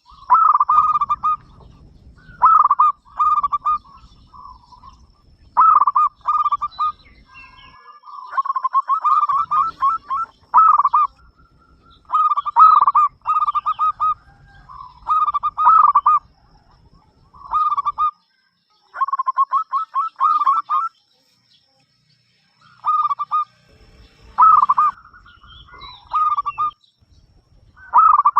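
Zebra dove (perkutut) cooing, repeating its trilled phrases of quick coos over and over with short pauses between them.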